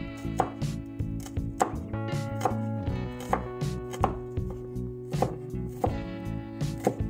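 Cleaver chopping onion on a wooden cutting board, with sharp knocks of the blade on the wood about one to two times a second. Background music plays underneath.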